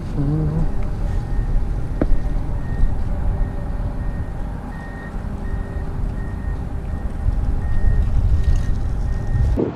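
Wind buffeting the camera microphone: a steady low rumble, with a faint high beep repeating in short dashes through the middle and one sharp knock about two seconds in.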